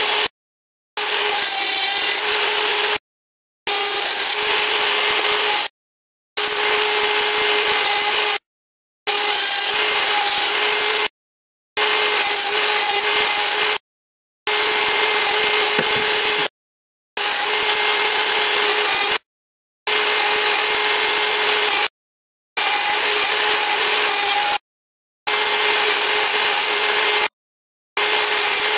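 A small power tool's motor running with a steady whine as it trims down a plastic part of the surge device. It is heard in repeated stretches of about two seconds, each broken off by a short silent gap.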